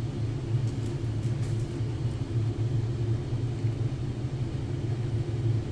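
Steady low background hum with no change or distinct events.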